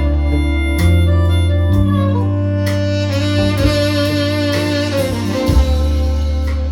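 Instrumental music with a heavy, sustained bass line and melody notes above it, played back through an Onkyo A-9310 amplifier and JBL LX-44 loudspeakers in a sound test.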